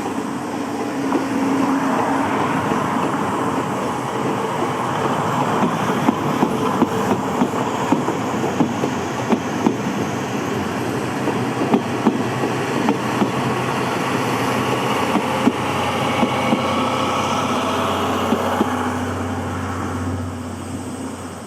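Steam-hauled passenger train rolling past, its wheels rumbling with a run of sharp clacks over the rail joints. A low steady drone builds near the end, then the sound cuts off.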